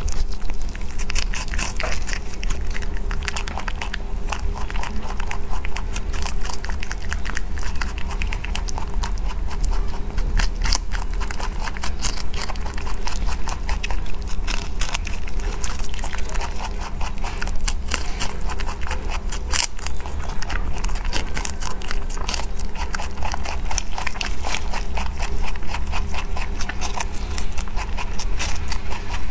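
A rabbit chewing crisp apple slices close to the microphone: rapid, continuous crunching clicks, several a second, over a steady low hum.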